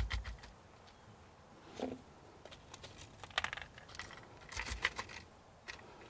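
Small hard nut pieces clicking and clattering as they are tipped out of a handheld vacuum's stainless-steel canister onto a hard surface, in a few scattered clusters of ticks. A rapid mechanical rattle dies away in the first half second.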